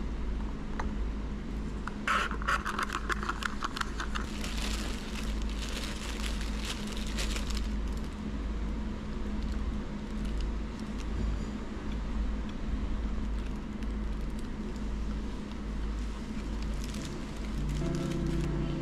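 Paper takeout bag crinkling and rustling as it is handled and opened, for several seconds starting about two seconds in, over a steady low room hum. Background music begins near the end.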